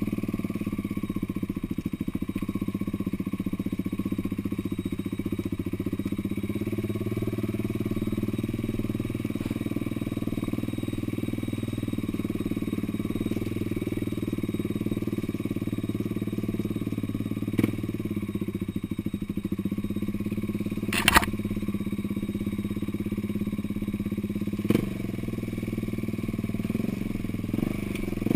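Off-road vehicle's engine running steadily, with a few sharp knocks, the loudest about three-quarters of the way through, and a clatter at the very end.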